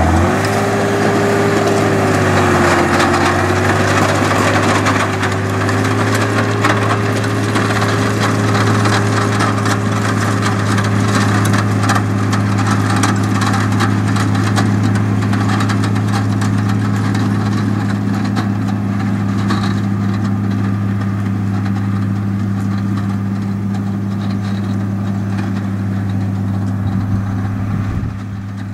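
Fiat 110-90 turbo tractor's six-cylinder turbo diesel engine running under load, its revs rising at the start and then held steady, pulling a Krone Turbo 4000 silage wagon. The wagon's pickup and rotor add a continuous crackling clatter as they gather the grass. The sound fades slightly as the outfit draws away.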